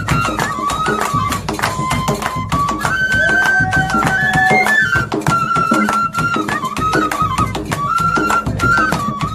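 Live Pahari dhol-bansuri folk music: a dhol beating a fast, steady rhythm under a piping wind-instrument melody that steps up and down in short phrases. A second, lower melody line joins briefly near the middle.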